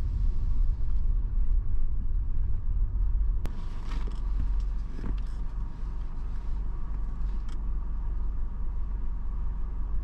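A car on the move: a steady low rumble of road and engine noise, with a few short clicks about midway.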